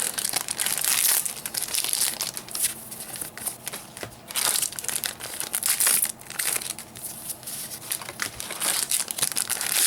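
Foil trading-card booster packs being torn open and crinkled one after another, in uneven bursts of rustling.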